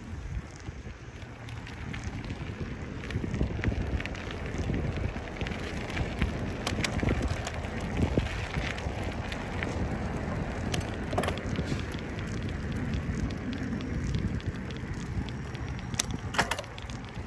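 Bicycle riding over a dirt path: the tyres crunch, and the bike and camera mount rattle in scattered sharp clicks over a low rumble of wind on the microphone.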